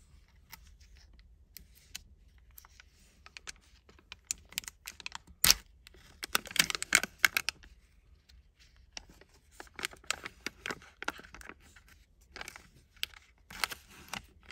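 Thin plastic film lid being peeled off a clear plastic blister tray of gummy candy: crinkling and crackling with many sharp clicks, and one loud snap about five and a half seconds in.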